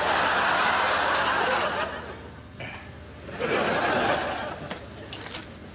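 Studio audience laughing in two waves: the first dies away about two seconds in, and a second swell rises about a second later and fades.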